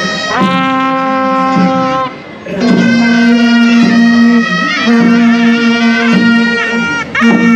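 Live parade music led by a loud, reedy wind instrument playing long held notes that slide up into pitch, over a steady lower tone; the music dips briefly about two seconds in.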